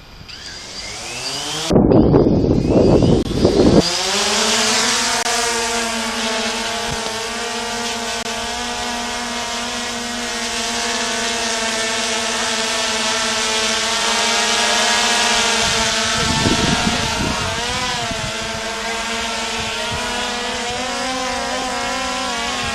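Quadcopter drone's propellers spinning up with a rising pitch, then running with a steady buzzing hum that wavers slightly in pitch as it flies. Bursts of rushing wind noise hit the microphone about two seconds in and again around sixteen seconds.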